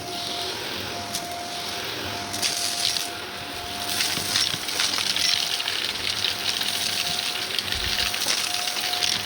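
Shark vacuum cleaner running with a steady whine, crackling and rattling as it sucks up gritty, crunchy debris.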